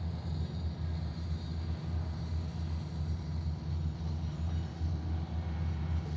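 Diesel engine of a GP89 track-laying gantry crane running steadily, a low, pulsing hum.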